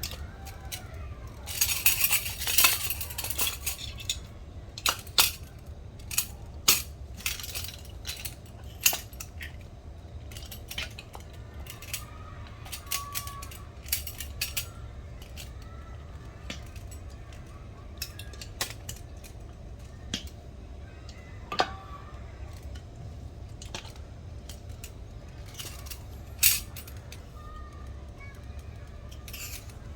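Scattered clinks and clicks of cutlery and tableware being handled, with a dense flurry about two seconds in, over a steady low hum.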